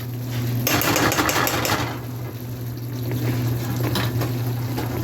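A spoon scraping and stirring, with a scratchy burst about a second in and lighter scraping after, over a steady low hum.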